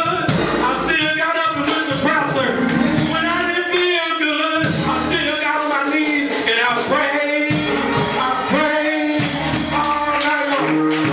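A preacher's voice amplified through a microphone, chanting in a half-sung, tuneful delivery over backing church music with a held low chord.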